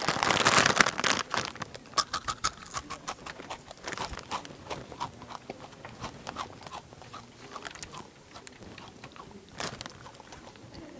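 Takis rolled tortilla chips crunched loudly with deliberate, exaggerated chewing: a quick run of crisp crunches that thins out later. A loud rustle of the chip bag comes first.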